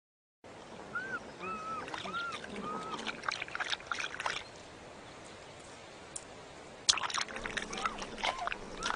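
Cheetah sounds at close range: a run of short chirps that rise and fall, over wet smacking and clicking mouth sounds. There is a lull in the middle, then a second burst of wet clicks and another chirp or two near the end.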